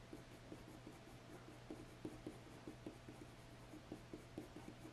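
Faint scratching of a coloured pencil on hot-pressed watercolour paper: a run of short, quick strokes, several a second, as dark fur is shaded in.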